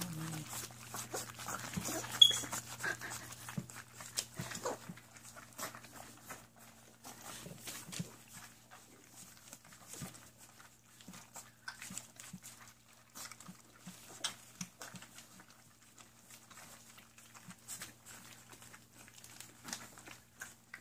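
A litter of weaning Labradoodle puppies eating from a shared stainless steel pan: many small wet lapping and smacking clicks throughout, with one louder clink about two seconds in. A steady low hum runs underneath.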